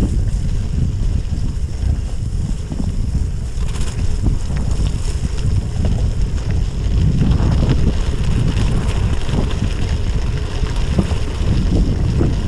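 Wind buffeting the microphone as a Trek Checkpoint SL5 gravel bike rolls fast down a wet gravel road, with the hiss and crunch of its tyres on wet gravel. The hiss grows stronger about four seconds in.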